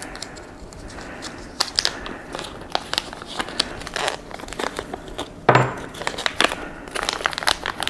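Plastic zip-lock bag crinkling and crackling as it is handled and worked open to get at small screws, in irregular bursts of crackles.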